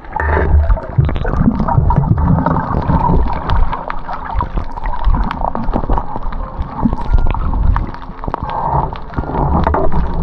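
Sea water sloshing and gurgling close to the microphone, with a low rumble and many small clicks and knocks. It comes in suddenly and stays loud throughout.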